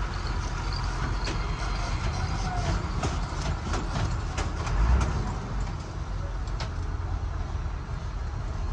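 Steady low rumble with scattered light clicks and small knocks from wiring and parts being handled inside an open truck dashboard, with one louder knock about five seconds in.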